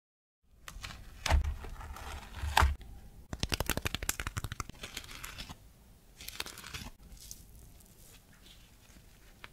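Crisp, sugar-dusted crust of a freshly baked ladyfinger (savoiardi) cookie crackling as fingers lift, squeeze and bend it. There are two louder crackles in the first three seconds, then a quick run of small crackles, then fainter ones.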